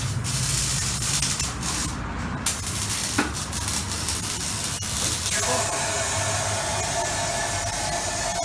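Maserati Quattroporte with a muffler delete and straight pipes, idling steadily: a low, even rumble under a broad hiss. A steady high tone joins about five and a half seconds in.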